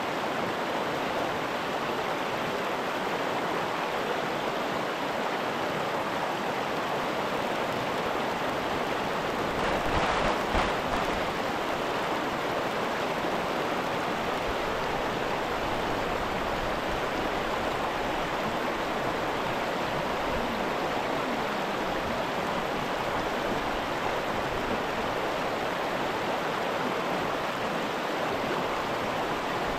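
Mountain stream rushing steadily, briefly louder about ten seconds in.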